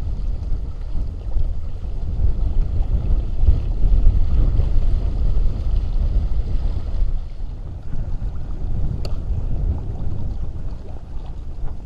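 Gusty wind buffeting the microphone with an uneven low rumble, over the hiss of water washing along a sailing kayak's hull and outriggers; the water hiss eases after about seven seconds, and there is a small click near nine seconds.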